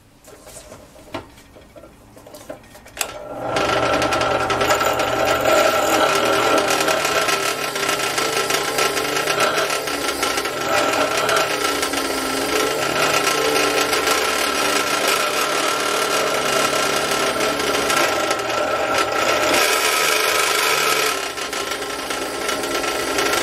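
Bench drill press starting up about three and a half seconds in and running steadily with a steady whine as its bit cuts into the four-pound hammer being made into a slide hammer. The cutting turns harsher for a second or two near the end, then eases.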